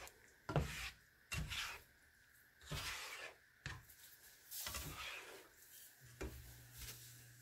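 A spatula scraping and stirring scrambled eggs in a frying pan, in repeated strokes about a second apart.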